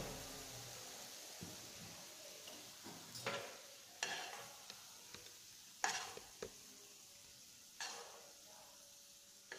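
A spoon scraping thick sweet potato halwa out of a nonstick frying pan into a small bowl: four short, faint scrapes a second or two apart, over a faint steady hiss.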